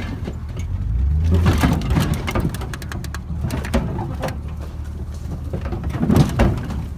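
Chevy pickup truck engine running with a steady low rumble. Sharp knocks and rattles sound close by, from inside the truck's bed.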